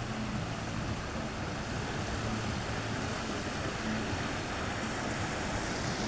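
Steady outdoor wash of wind and sea surf.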